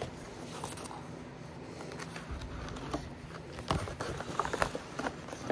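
Hands handling a camera's packaging: quiet faint rustling, then a quick run of light clicks and taps about two-thirds of the way in.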